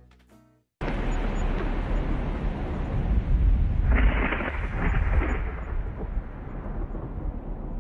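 A loud, steady rumbling rush of noise that starts abruptly about a second in, with brighter hissing swells around four and five seconds, like wind or distant thunder.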